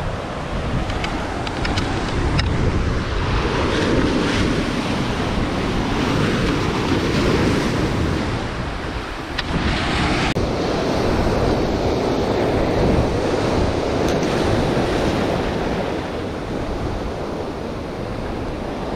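Ocean surf breaking and foaming among shoreline rocks, a steady wash, with wind buffeting the microphone.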